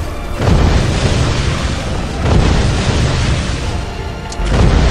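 Staged pyrotechnic explosions: three heavy booms about two seconds apart, each followed by rumbling, over background music.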